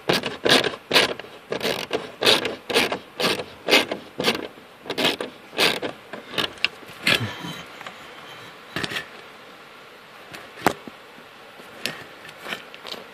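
Small hand ratchet clicking as it backs bolts out of a plastic dash panel, in quick strokes of about two a second. It stops for several seconds past the middle and starts again near the end.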